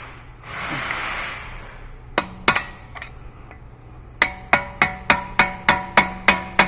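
Hammer blows on a punch set against the end of the CV axle shaft, driving the axle out of the front wheel hub of a 2013 Nissan Altima. Two strikes a little after two seconds in, then from about four seconds a steady run of ringing metal-on-metal strikes, about three a second.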